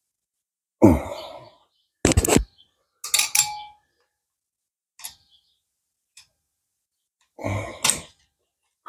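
Scattered metal clicks and scrapes, one briefly ringing, as a pick works at the piston's wrist-pin keeper on a Yamaha Badger 80 engine.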